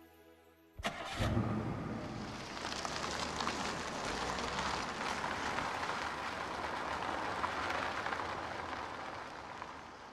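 A car starting up with a sudden rush of sound about a second in, then driving along a dirt lane: a steady noisy run of engine and tyres that eases off near the end.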